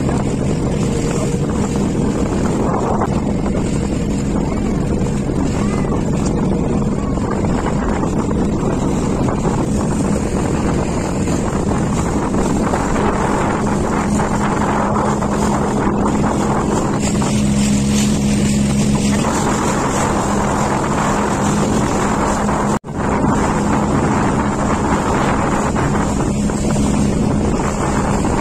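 Motorboat engine running steadily under way, a constant low hum, with water rushing and splashing at the hull and wind on the microphone. The sound cuts out for an instant near the end.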